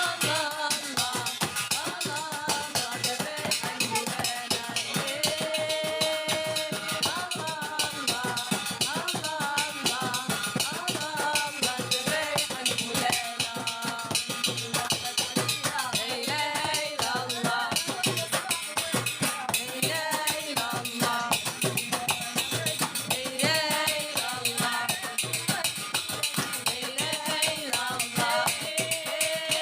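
Music: a sung melody over busy hand percussion with rattles and drums, keeping a fast, steady beat.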